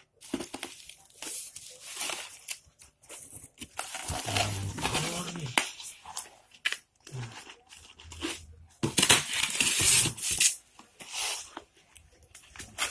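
Plastic-wrapped styrofoam packing block being handled and pulled out of a cardboard box: irregular rubbing, scraping and crinkling in uneven bursts, loudest a little past the middle.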